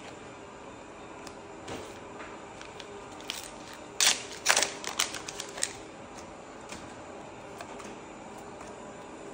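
Trading cards being handled and sorted by hand on a cloth playmat: a quick run of sharp snaps and taps about four seconds in, over a faint steady hiss.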